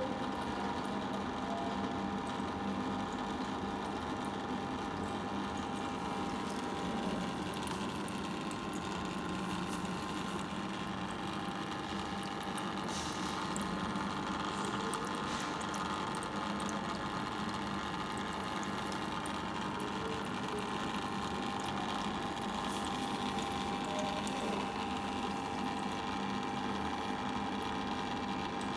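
Dolphin H-500 hang-on-back aquarium power filter running: a steady motor hum, with water pouring from its outflow into the tank.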